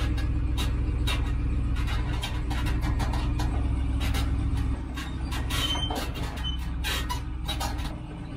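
Truck engine running while backing an empty gooseneck flatbed trailer, with the trailer rattling and knocking over the ground and a brief squeak or two. The engine drone drops off about halfway through.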